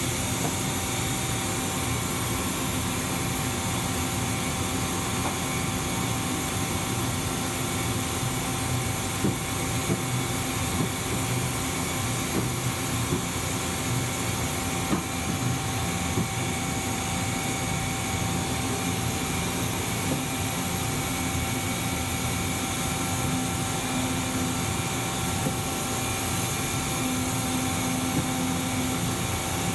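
Kitamura Mycenter 2XiF CNC vertical mill running under power: a steady machine hum with a few high steady tones and occasional faint ticks.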